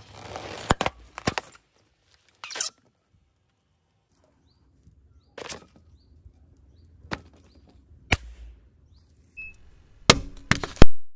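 A series of sharp pops as twisted latex balloons burst under a car tyre, one at a time with pauses between. Near the end a quick run of louder crunching cracks as an aluminium drink can is crushed under the tyre.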